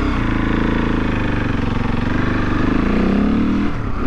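Husqvarna 701 Enduro's single-cylinder engine running through an Akrapovic slip-on titanium exhaust while riding under throttle. The engine note climbs about two-thirds of the way in, then drops suddenly near the end.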